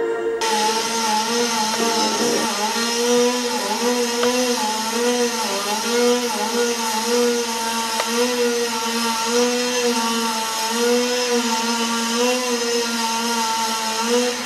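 Chainsaw running loudly, its pitch dipping and recovering over and over, about every two-thirds of a second, as it works through the palm.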